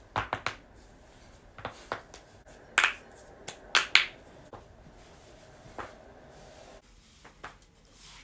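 Neck and finger joints being cracked by hand: a series of sharp pops in small clusters, the loudest about three to four seconds in.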